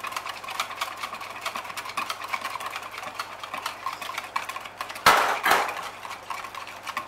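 Wire whisk beating milk, eggs and melted butter in a plastic measuring jug, its wires ticking quickly and steadily against the jug. About five seconds in there is a brief loud clatter, twice in quick succession.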